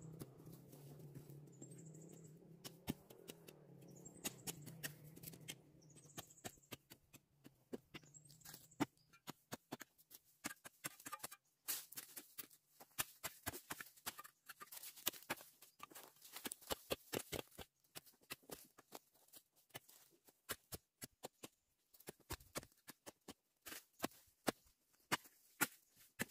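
Hand hoe chopping and scraping into burnt, ash-strewn soil: quick, irregular crunches and clicks, much denser from about a third of the way in. Before that, a faint low hum with a short high chirp about every two seconds.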